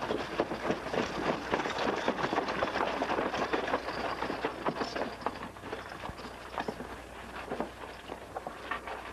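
Hoofbeats of several galloping horses, a dense, irregular clatter that is loudest at first and thins out after about five seconds, over the steady low hum of an old film soundtrack.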